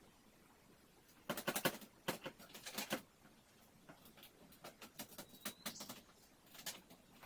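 A quick run of clicks and rattles for about a second and a half, then scattered single clicks and taps.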